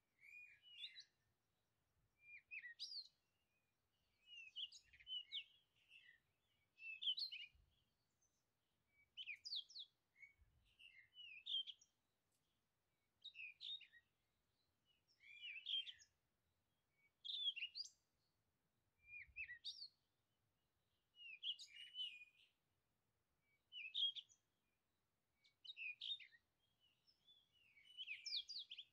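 Songbird singing faint, short song phrases, repeated about every one to two seconds.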